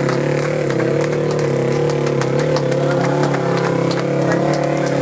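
Enduro motorcycle engine running steadily at low speed, its pitch wavering slightly, with many small sharp ticks over it.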